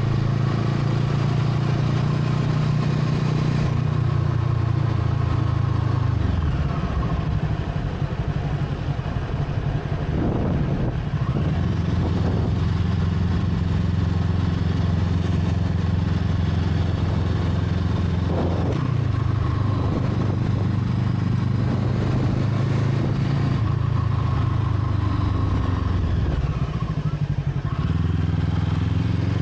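Brixton Crossfire 500's parallel-twin engine running steadily, its note shifting in pitch several times.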